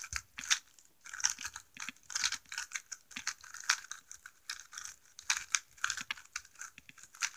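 Brand-new stickerless magnetic GAN 3x3 speedcube getting its first turns by hand: an irregular run of short plastic clicks and swishes as the layers are turned, a few a second.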